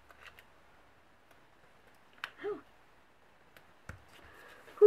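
Small clicks and taps from peeling and pressing letter stickers onto a planner page, a few isolated ticks with a short hum about halfway through and a louder tap right at the end.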